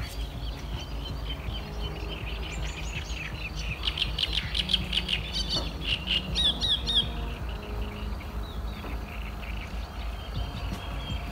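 Small birds singing: runs of quick, high chirping notes, busiest and loudest in the middle, over a steady low rumble.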